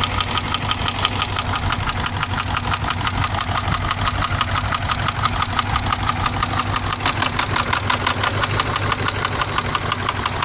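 Subaru engine running at a steady idle with a fast, even knocking, the engine knock that makes the owner weigh repairing it against buying a replacement engine.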